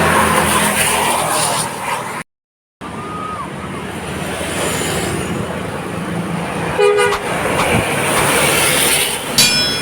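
Roadside traffic noise from passing vehicles, with a short horn toot about seven seconds in and another brief toot near the end. The sound cuts out for about half a second just after two seconds in.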